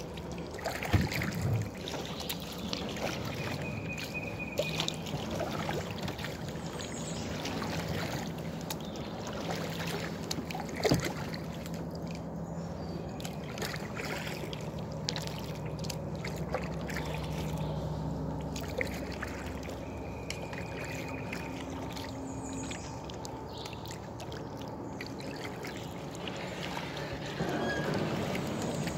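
Kayak paddling through still, flooded swamp water: paddle blades dipping, dripping and sloshing at a steady pace, with a couple of sharp knocks, one about a second in and one near the middle.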